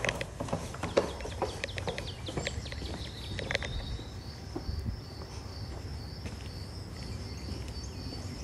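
Outdoor ambience with a low rumble. Short clicks and chirps in the first half give way to a steady run of high, evenly repeated pulses, an animal call, from about halfway through.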